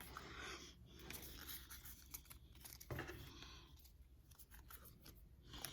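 Faint crinkling and tearing of a foil Pokémon booster pack wrapper, in short rustling spells, with scattered light clicks and a sharper tap about three seconds in as cards are handled.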